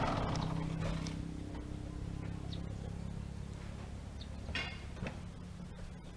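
Mazda pickup truck's engine running with a steady low hum that fades as the truck settles on the scale. A little after four and a half seconds in come two short clicks, the driver's door being unlatched and opened.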